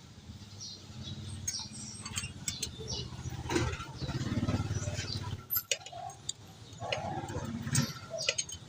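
Hand tools clinking and clicking against metal in irregular strokes while glow plugs are fitted into a diesel engine, over a steady low hum.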